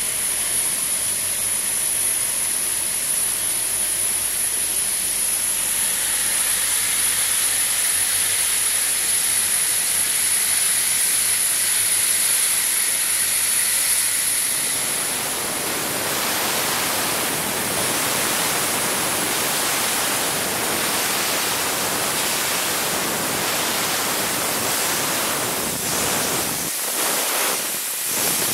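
Steam locomotive hissing steam steadily, with a thin high-pitched hiss on top for the first half. About halfway through the hiss becomes fuller and deeper, and near the end a few separate puffs come as steam blows out low around the cylinders.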